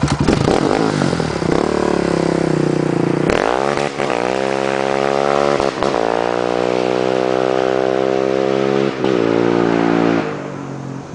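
Modified Yamaha Raptor 700R ATV's single-cylinder four-stroke engine revving hard as the quad accelerates away. The pitch climbs in each gear, with brief breaks at three upshifts, and the sound drops off as the quad pulls away near the end.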